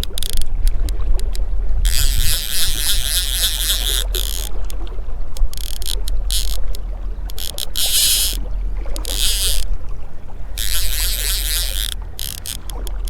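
Fly reel's clicker drag screaming in about six spurts of a second or so as a hooked large rainbow trout runs and pulls line off the reel, over a steady low rumble.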